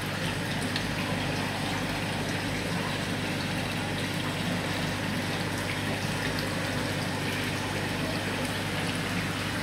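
Steady rush of water with a low, even pump hum from the koi fry tank's circulation.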